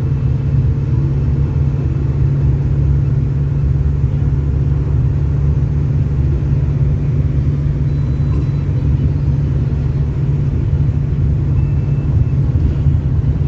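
Agrale diesel engine of a Volare V9L minibus running steadily under way, a loud, even low drone heard from inside the cabin.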